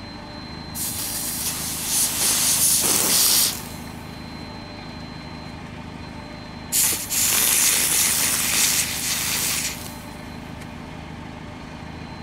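Aerosol freeze spray hissing onto the truck's engine computer board in two bursts of about three seconds each, cooling parts of the board to find a heat-sensitive fault. The truck's engine runs steadily underneath.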